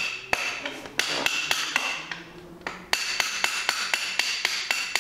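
Hammer tapping a screwdriver against the end of a pit bike's rear wheel axle to drive the axle out. Quick metallic knocks with a ringing tone, about three or four a second, in two runs with a short pause about two seconds in.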